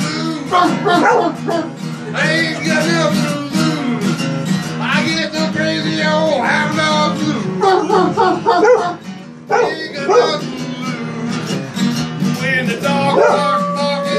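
Acoustic guitar strumming a blues accompaniment while a dog barks and howls along in rising and falling cries.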